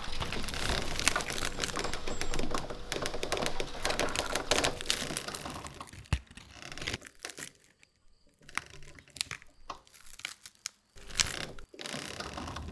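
Dry crackling and crunching, a dense run of irregular clicks like brittle wood or twigs breaking. About six seconds in there is one sharp snap. After that the crackling thins out to scattered clicks with near-silent gaps.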